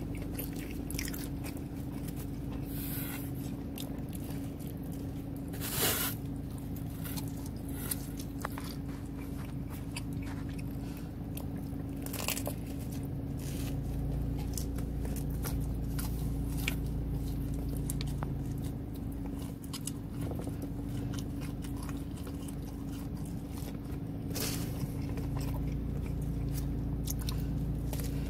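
Close-up mouth sounds of a person biting and chewing pan pizza, with crunches of the crust. A few louder bites stand out about 6, 12 and 24 seconds in. A steady low hum runs underneath.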